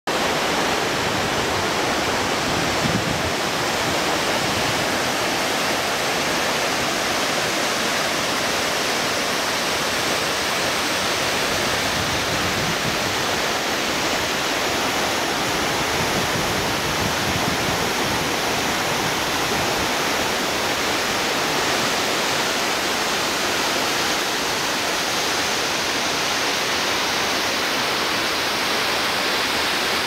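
Steady, unbroken rushing of falling water from the Partschins waterfall, an alpine waterfall about 97 m high, and its mountain stream.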